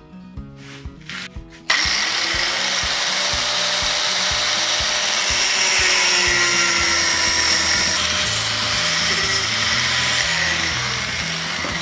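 A small angle grinder with a thin cut-off disc starts up about two seconds in and cuts through a metal tube clamped in a vise, a loud steady grinding hiss. Background music with a beat plays throughout.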